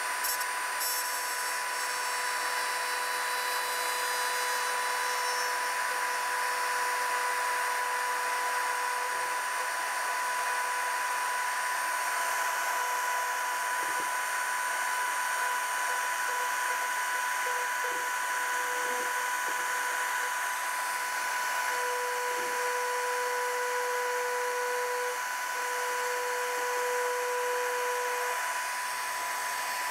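Black & Decker RTX rotary tool running steadily with a high whine, spinning a length of black 2.85 mm PLA filament pressed along a seam between two PLA prints: friction welding, the heat of the spinning filament melting it into the joint. A lower tone in the whine comes and goes in the second half.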